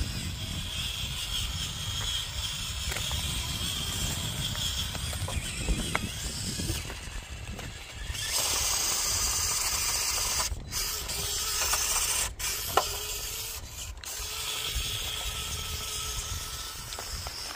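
Small electric motor and gear drive of an FMS CR18P Trail Hunter 1/18-scale RC crawler running as it drives over rocks, with a steady mechanical whine. The sound cuts out briefly three times in the second half.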